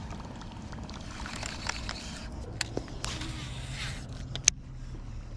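Baitcasting reel being cranked to retrieve a lure: a rasping whir about three seconds in and a single sharp click near the end, over a low steady hum.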